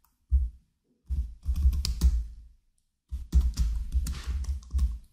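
Typing on a computer keyboard: a single keystroke, then two runs of quick keystrokes with a short pause between them.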